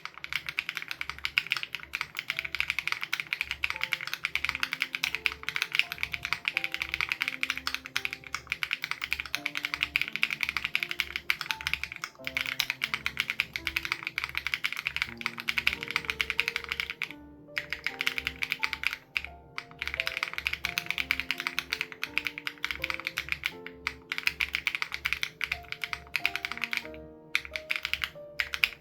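Fast, continuous typing on an SPM AL87B custom mechanical keyboard with BSUN Raw switches and its dampening foam removed, with short pauses a few times. Soft background music carries a slow melody and a low beat about twice a second underneath.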